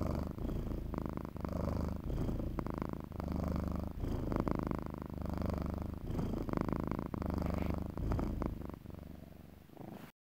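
Domestic cat purring close to the microphone, the purr swelling and easing about once a second with each breath, with a few faint clicks. It fades and cuts off near the end.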